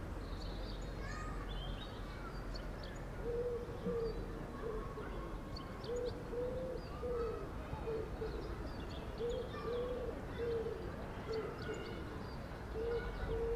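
A pigeon cooing in about four phrases of several soft, low, repeated notes, with faint small-bird chirps and twitters behind it.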